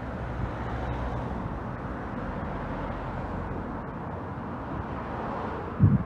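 Street traffic noise: a city bus's engine running as it passes close by, then steady road noise. A loud low thump near the end.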